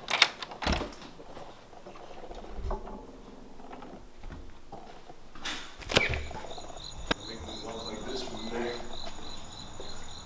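Door hardware clicking as a door knob is turned and the latch released, then a loud clack about six seconds in as a door is pushed open by its push plate. After it, crickets chirp steadily in a fast, even pulse.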